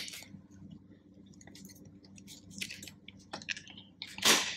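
A small cardboard box handled in gloved hands: scattered light taps, clicks and rustles as it is turned over, with a louder brushing rustle near the end.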